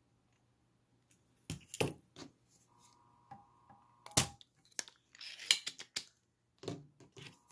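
Spring-loaded solder sucker (desoldering pump) firing with a sharp snap about four seconds in, pulling molten solder off a motherboard pin heated by a soldering iron. Lighter clicks and handling noise come before and after it. A faint steady high tone sounds for about a second and a half just before the snap.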